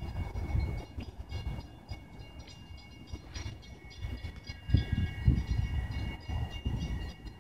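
Long Island Rail Road electric commuter train pulling away down the line: a steady high whine over rail rumble, with irregular low rumbles that swell about halfway through.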